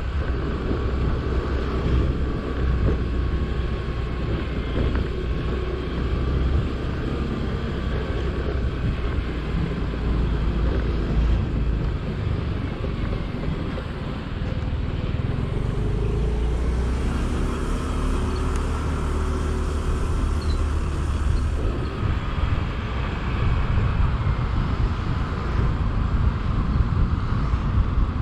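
Motor-scooter ride through city traffic: a steady low rumble of wind buffeting the microphone over engine and road noise. About two-thirds of the way in, an engine note climbs in pitch and a hiss rises for several seconds.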